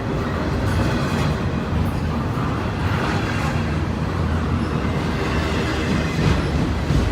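Norfolk Southern freight train rolling past: a steady rumble of wheels on the rails, with a few faint clicks scattered through it.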